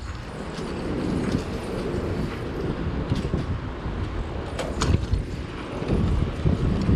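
Bicycle rolling over concrete, giving a steady low rumble of tyre and wind noise on the microphone, with a couple of light rattles from the bike over pavement joints.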